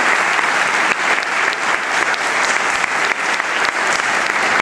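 A church congregation applauding, many hands clapping steadily.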